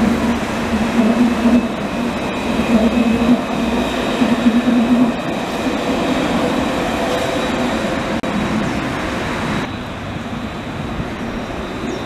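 Tenerife light-rail tram (Alstom Citadis) running past close by, with a steady rolling rumble and a low drone through the first five seconds. The sound changes abruptly about ten seconds in as another tram approaches.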